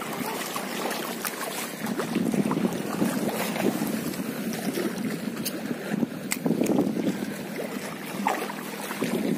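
Gusty wind buffeting the microphone over choppy water, the rumble rising and falling, with scattered light clicks throughout.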